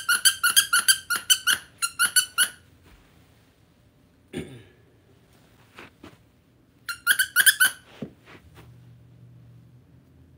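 Squeaker in a dog toy being squeezed rapidly: a fast run of same-pitched squeaks, about five a second, over the first two and a half seconds, then a shorter run about seven seconds in.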